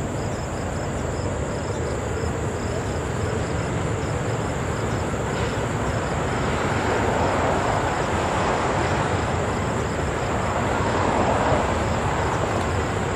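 Distant freight train's diesel locomotives and loaded coal cars giving a steady rumble, swelling a little in the second half as the train comes across.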